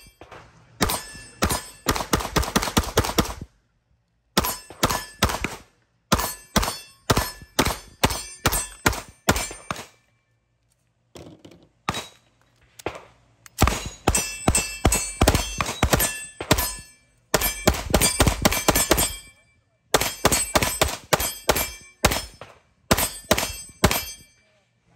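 Staccato 2011-style pistols firing in rapid strings of shots, several a second, with short pauses between strings.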